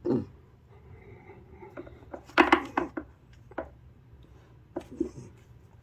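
Handling noises in a wooden box: a soft thump at the start, a cluster of sharp knocks and rustles about two and a half seconds in, and a couple of smaller knocks near the end.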